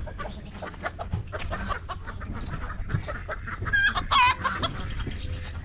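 Chickens clucking in short, scattered calls, with one louder, drawn-out squawk about four seconds in.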